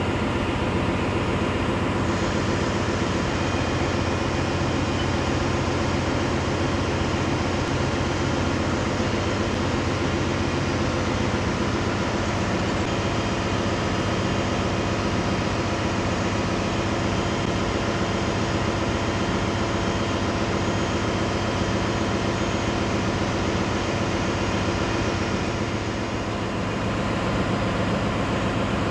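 Steady, loud engine-room machinery noise from a ship's running engines, a constant drone with a low hum.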